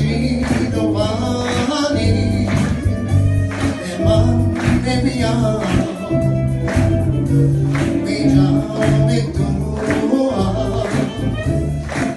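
Live gospel song played over a PA: a man sings into a microphone, accompanied by violin and a band with a steady beat.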